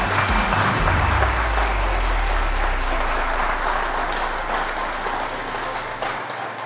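Congregation applauding: dense clapping that gradually fades toward the end.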